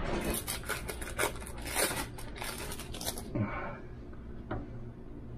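Crinkling, tearing rustles of a plastic wrapper being peeled off a slice of cheese, a busy run for about three seconds that then dies down to a few faint handling sounds.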